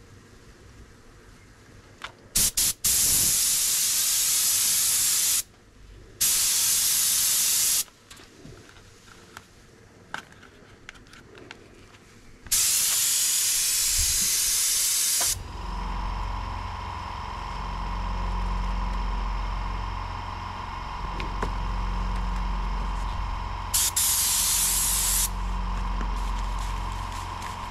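Paint spray gun laying down clear coat: four hissing bursts of one to three seconds each, with a few short blips of the trigger before the first. About halfway in, a machine starts up and runs with a steady hum and low drone that carries on under the last burst.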